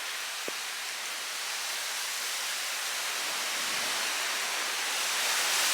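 Tropical-storm wind and rain making a steady hiss that builds into a stronger gust toward the end.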